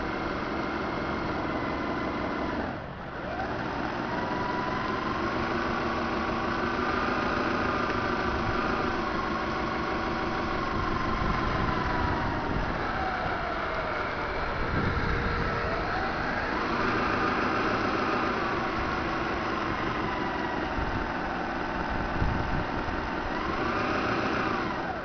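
Radio-controlled model harbour tug with Voith Schneider drive running on the water: a steady motor hum with several whining tones that rise and fall in pitch as it manoeuvres. The sound dips briefly about three seconds in.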